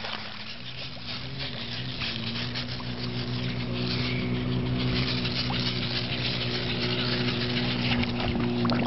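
A steady low motor hum with a buzzing tone, over light water splashing and sloshing.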